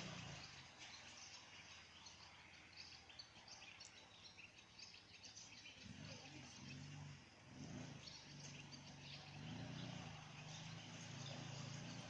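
Near silence: faint outdoor background with scattered faint chirps, and a low steady hum that fades in about halfway through.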